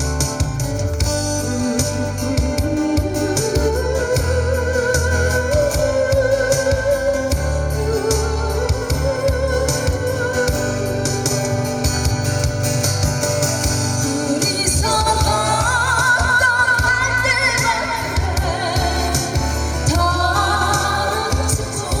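Music: a backing track with a steady beat and bass under a slow, sustained lead melody with heavy vibrato.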